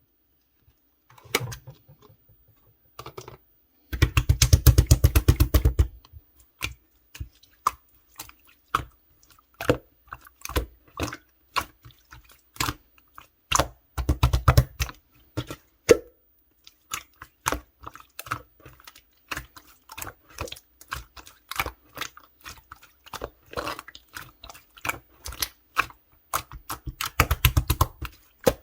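Clear slime being squished and worked by hand, making wet clicks and pops as trapped air bubbles burst. The pops come in scattered runs, with dense rapid bursts about four seconds in, around the middle and near the end.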